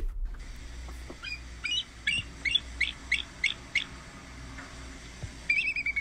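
Bald eagle calling: a series of thin, high chirps, about three a second, then a quick chattering trill near the end. This is the bald eagle's real voice, likened to a seagull with laryngitis, and not a shrieking call.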